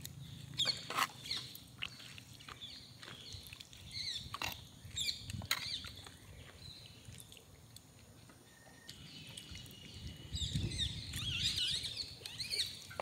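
Small birds chirping in quick, wavering notes, busiest near the end. Soft clicks and wet squelches come from curry being spooned onto rice and mixed by hand.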